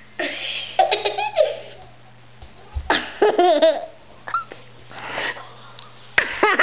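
A young girl laughing and giggling close to the microphone in three bouts with short pauses between.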